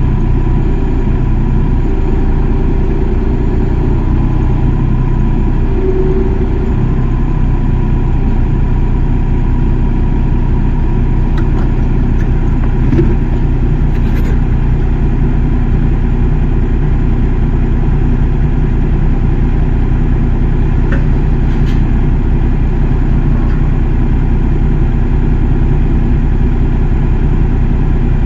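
Excavator's diesel engine running steadily, with a few faint clicks.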